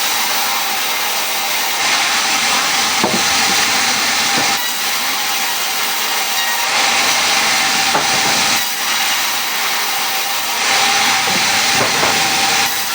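Power saw cutting through wood: a loud, steady noise with a constant whine, swelling and easing every couple of seconds as the cut goes on.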